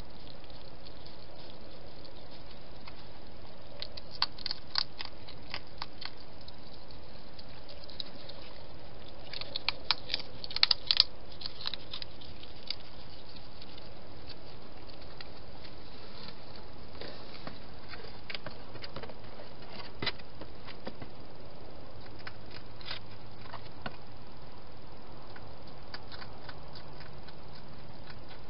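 Wild hedgehog feeding and moving about at its plastic dishes: bursts of small, sharp clicks and taps over a steady hiss, busiest about ten seconds in, then only a few scattered clicks.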